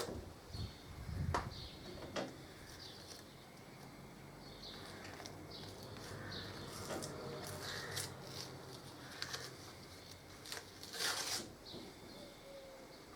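Small handling noises as a brake-caliper seal kit is picked out of its plastic packaging: scattered light clicks and rustles, with a few sharper clicks about a second in, around two seconds in and near the end.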